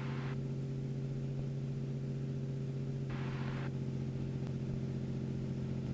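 Cessna 206's piston engine and propeller droning steadily at approach power, a constant low hum with overtones. A brief hiss comes about three seconds in.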